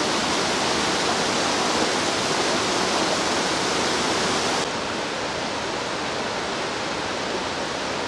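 Steady rush of a waterfall pouring into a pool. About halfway through it drops abruptly to a slightly quieter, duller rush of water.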